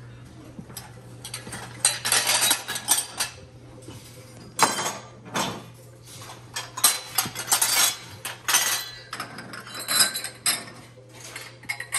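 Glassware clinking: wine glasses and drinking glasses knocking together as they are lifted off shelves and set into a metal shopping cart heaped with glasses. The clinks come in irregular clusters throughout.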